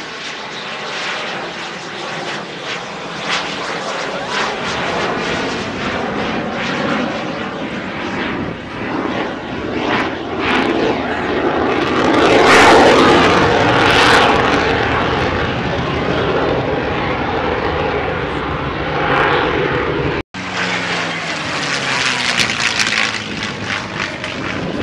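F-16 fighter jet's single turbofan engine roaring during a pass. The sound builds to its loudest about halfway through and then eases. It breaks off abruptly for a moment near the end before the roar resumes.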